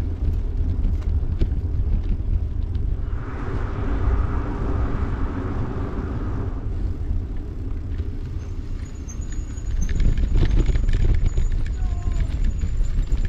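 Wind buffeting the microphone of a bike-mounted camera while riding, a steady low rumble with tyre noise underneath. From about ten seconds in it grows louder and rougher as the tyres crunch onto gravel.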